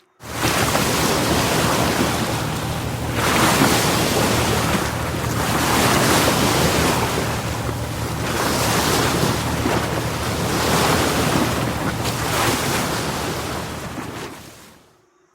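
Ocean surf: a steady rush of waves that swells and eases every few seconds, fading in at the start and fading out near the end.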